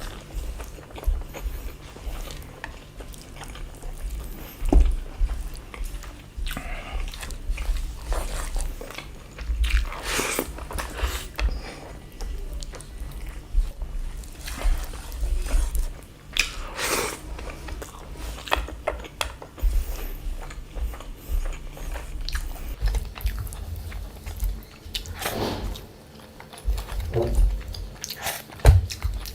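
A person chewing and biting food close to the microphone, irregular mouth sounds with a few louder bites and low thuds.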